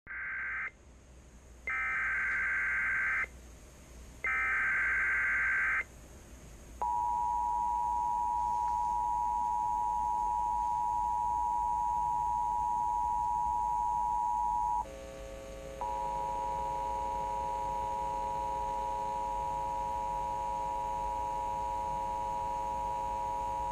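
Emergency Alert System header: three short bursts of rapid digital data tones (the SAME header), then the steady two-tone EAS attention signal. About fifteen seconds in, the two-tone breaks off for a second and returns with a lower buzzing tone sounding beneath it.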